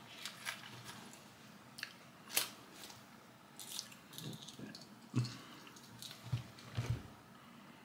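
Hands handling small pieces on a desk: scattered faint clicks, taps and rustles, a few in quick clusters.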